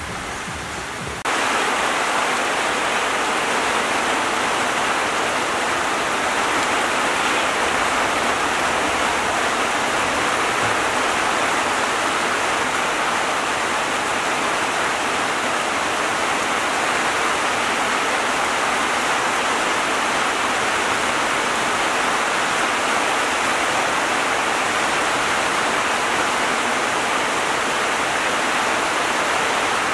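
Steady rain falling, an even hiss that gets suddenly louder about a second in and then holds level.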